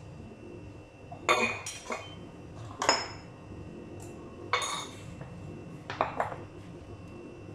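Kitchen utensils and dishes clattering on a countertop as they are handled and set down: about six separate knocks and clinks, one of them near the middle with a short metallic ring.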